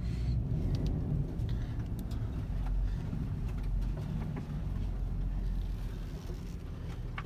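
Cabin sound of a 2018 Toyota 4Runner TRD Off-Road driving slowly: a steady low rumble from its 4.0-litre V6 and the tyres, heard from the driver's seat.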